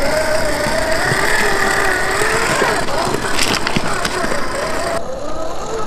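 Traxxas TRX-4 RC crawler's electric motor and geared drivetrain whining, the pitch rising and falling with the throttle. A short crunch about three and a half seconds in.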